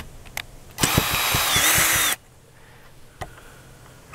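Cordless drill running in one steady burst of about a second, starting about a second in, with its motor pitch dipping just before it stops, as it works the screws of an old door hinge. A few light clicks come before it.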